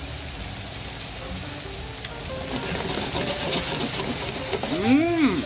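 Eggplant, pork and vegetables sizzling in a hot frying pan in doubanjiang sauce, the sizzle growing louder from about two seconds in. Near the end comes a short tone that rises and falls in pitch.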